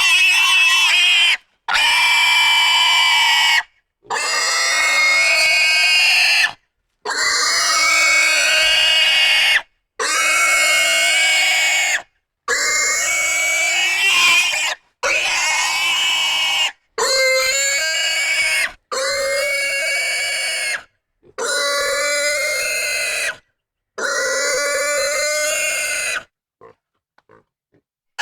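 Pig squealing: about eleven long, loud, high-pitched squeals of roughly two seconds each, one after another, each cut off abruptly by a brief silence. It goes quiet about two seconds before the end.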